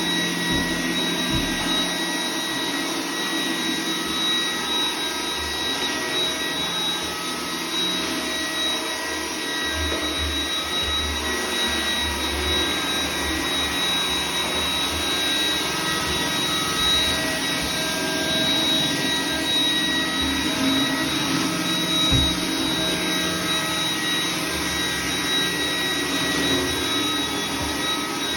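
iRobot Roomba 980 robot vacuum running: a steady whirr with a high whine over it and an uneven low rumble that swells and fades.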